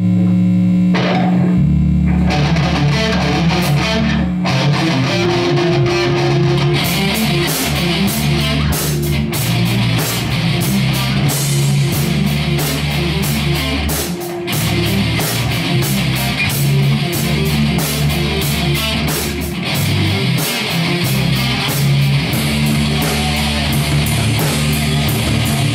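Heavy metal band playing: electric guitar riffs over bass guitar, with fast, driving drum hits joining from about seven seconds in.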